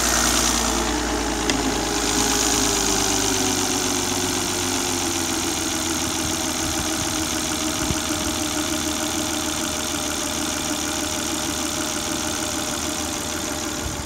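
Volvo XC90 engine idling with its freshly fitted variable valve timing units, its idle pitch easing down over the first few seconds and then holding steady. Now and then a faint click is heard: the valve timing solenoids working.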